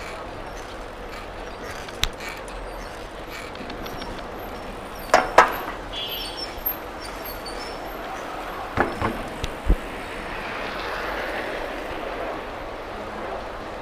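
Street noise heard from a moving bicycle: a steady rush of traffic and air, broken by a few sharp clacks, one about two seconds in, a pair about five seconds in and a quick cluster around nine seconds in.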